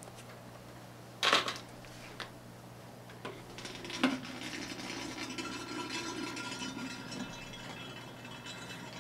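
Air from an aquarium air pump bubbling out of small slits cut in airline tubing submerged in a plastic bucket of water, a steady gurgle like a kid blowing bubbles through a straw into a drink. It starts about four seconds in, after two knocks of the tubing and bucket being handled, over a steady low hum.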